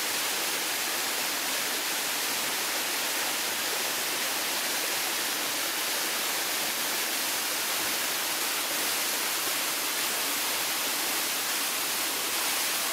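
Small waterfall pouring down a rock face into a shallow rocky pool: a steady rushing hiss of falling water.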